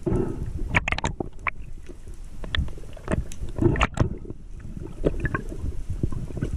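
Muffled water movement picked up through an underwater camera housing: a low, uneven rumble with many irregular clicks and knocks.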